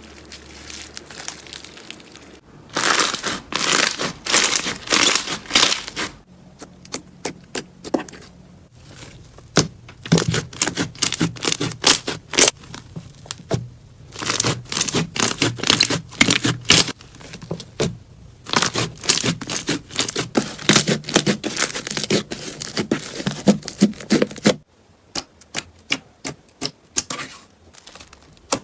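Slime being pressed and stretched, its trapped air bubbles popping in dense runs of sharp crackling clicks that come in several bursts, with quieter pauses between them.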